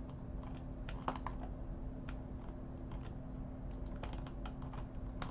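Computer keyboard typing: irregular clicks of keys, over a steady low hum.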